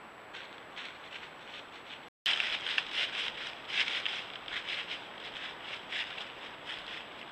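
Trail-camera audio of irregular crackling and rustling, like something moving through dry leaves. It is faint at first, then cuts out briefly about two seconds in and comes back louder and busier.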